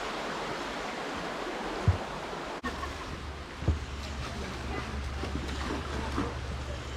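Rushing water of the Rivelin River, a steady hiss. After a cut about two and a half seconds in, a low wind rumble on the microphone joins it, and there are two brief thumps.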